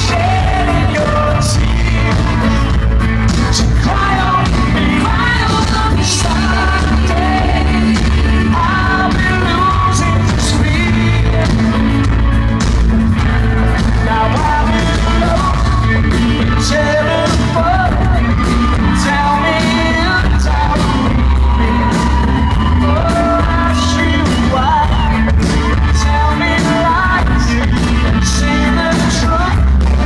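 Live pop-rock band playing: a man singing lead over electric guitar, bass guitar, keyboard and a drum kit keeping a steady beat, recorded from the audience in a club.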